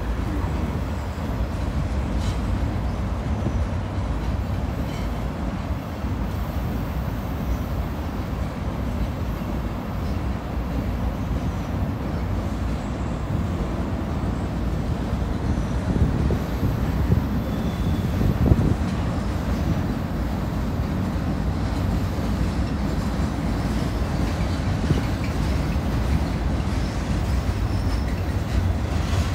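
Long CSX freight train of boxcars and tank cars rolling across a steel truss railroad bridge: a steady rumble with wheel clatter, and a few louder knocks a little past the middle.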